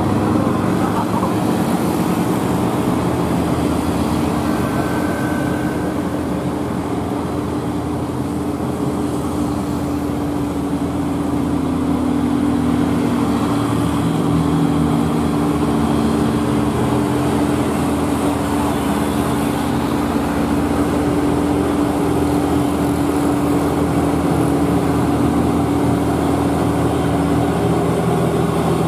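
Hino cargo truck's diesel engine droning steadily under load as it climbs a steep grade, with cars and motorcycles passing close by. A brief high tone sounds about five seconds in.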